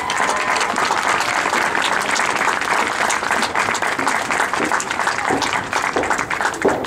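Crowd applauding, a dense steady clapping that thins out near the end.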